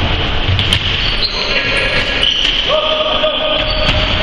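Basketball game on a hardwood gym floor in a big echoing hall: a few sharp bounces of the ball, then drawn-out squeaks, first a high one and then a longer, lower one, of the kind that sneakers make on the boards, over the rumble of running players.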